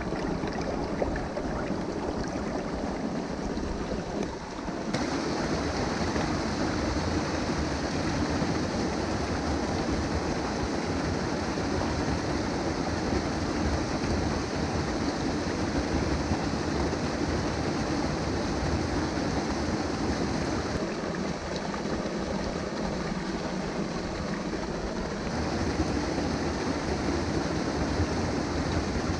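Shallow stream rushing steadily over a small cascade and rocks, with a brief dip about four seconds in.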